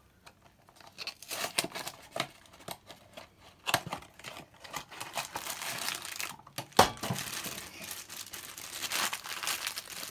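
A cardboard blind box being opened and the black foil bag inside it crinkling and tearing as it is handled, in a run of irregular crackles. A single sharp crack about two-thirds of the way through is the loudest sound.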